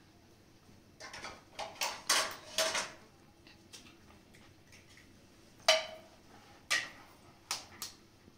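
Dishes and cooking utensils clinking and knocking: a quick run of clatter in the first few seconds, then four separate clinks, the loudest ringing briefly.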